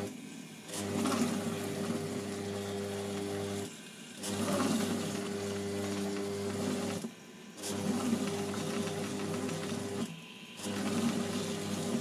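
Monsieur Cuisine Connect food processor's motor stirring a heavy load of beef and vegetables on slow reverse speed. It runs for about three seconds, stops for about half a second, then starts again, four times over. The owner suspects the machine is at its limit with such a large quantity.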